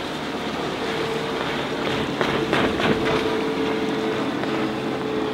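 2008 Mariah SC21 cuddy boat running at speed, its engine droning with a steady tone over a haze of wind and water noise. A louder rush of noise comes about two seconds in and lasts about a second.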